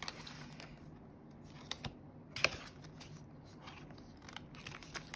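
Small clicks and rustles of paper money and plastic binder envelopes being handled, with one sharper click about two and a half seconds in.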